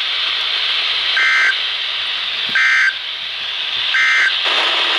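Three short bursts of buzzing EAS/SAME digital data tones from a NOAA Weather Radio broadcast, evenly spaced about a second and a half apart over radio static hiss: the end-of-message code that closes a flood warning.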